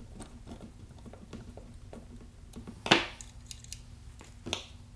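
Small metal clicks and clinks of a screwdriver working the trigger and lever screws on a steel BB-gun frame and the frame being handled on a wooden workbench. A louder sharp knock about three seconds in, like a tool set down on the bench, and a smaller one near the end.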